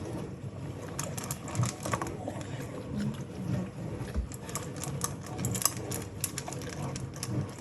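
A dog eating and working its mouth: a rapid, irregular run of wet clicks and smacks from chewing and licking, with low short grunting sounds underneath.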